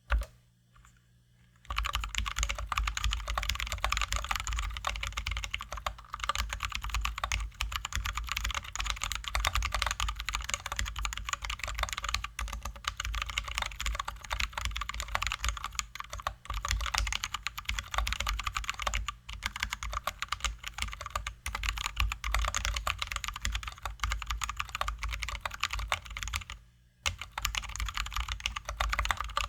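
Fast, continuous typing on a Drop ALT high-profile mechanical keyboard with lubed and filmed Zealios V2 67g tactile switches and XDA-profile keycaps. A single keystroke and a short pause come first, then a dense run of key clicks, with one brief pause near the end before the typing starts again.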